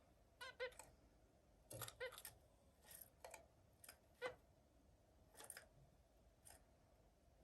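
Zebra finch giving short, faint calls, singly or in quick pairs, with pauses of a second or so between them.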